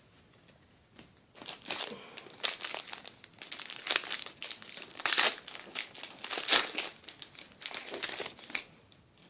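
Trading card pack wrapper crinkling in irregular bursts as it is handled and torn open. It starts about a second in and stops shortly before the end.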